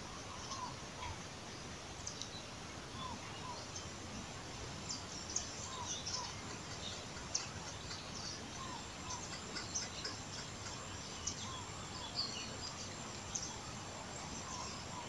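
Birds calling over steady outdoor background noise. A short rising call repeats about every one and a half seconds, with scattered high chirps among it.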